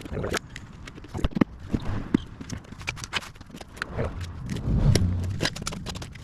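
Irregular clicks, knocks and scrapes of hand work on a motorcycle wheel and tire. A heavier dull thump comes about five seconds in.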